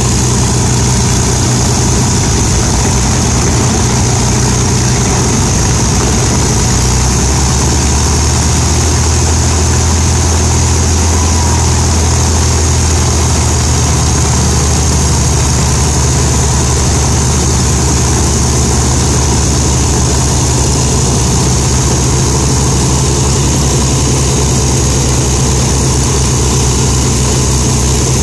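Avro Lancaster's Rolls-Royce Merlin V12 piston engines running during a ground run-up, a loud steady drone. The low note shifts up about seven seconds in.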